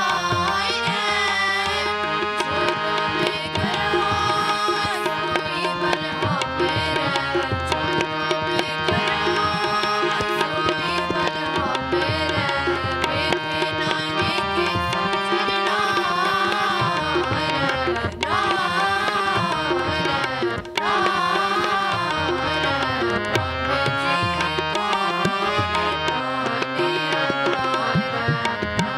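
Sikh kirtan in raag Bilaval: two harmoniums and group singing over a steady tabla beat.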